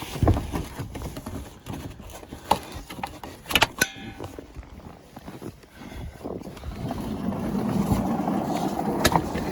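Knocks and a sharp, ringing metal clank from working at a stuck storage-building door, then a few seconds of rising scraping and rumbling as the door is forced open.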